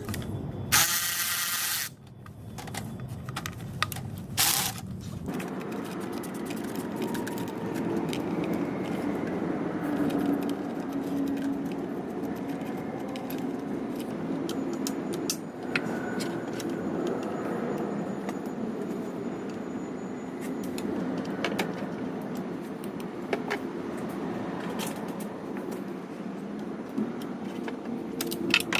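Metal tools and parts clinking and scraping during hands-on work on a car. There is a short loud burst of noise about a second in and another near four and a half seconds, then a steady low hum under scattered clicks.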